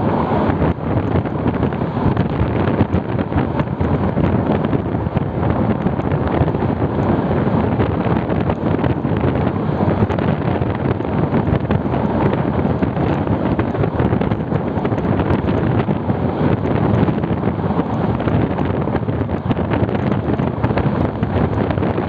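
Train running at speed, heard from alongside the carriage: a steady rumble from the train on the track, with wind buffeting the microphone.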